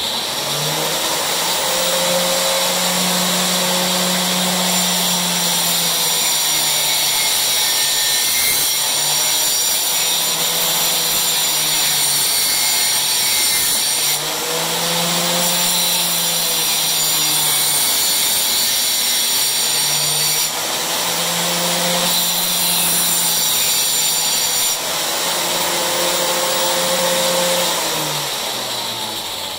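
Angle grinder with a toothed wood-cutting blade, mounted in a sliding mitre stand, switched on suddenly and run while cutting through a pine board. Its whine shifts in pitch several times as the blade is fed into the wood, then winds down near the end.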